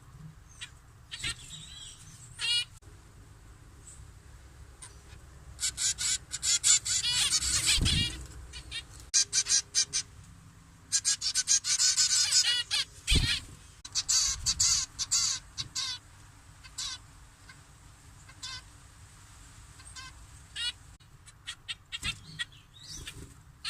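Birds at a nest calling: bouts of rapid, high-pitched chirping that come and go, loudest in several busy bursts, with quieter single calls between them. Two brief low thumps sound during the busiest bursts.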